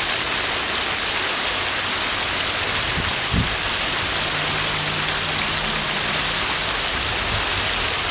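Shallow creek water rushing and babbling over rocks in a steady hiss, with one brief low thump about three seconds in.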